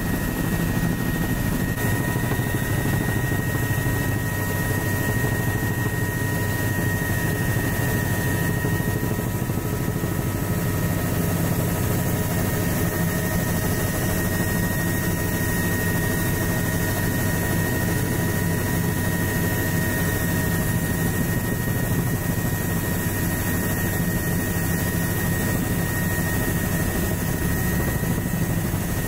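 Helicopter in flight heard from inside its doors-off cabin: steady rotor and engine noise with a constant high-pitched whine over it.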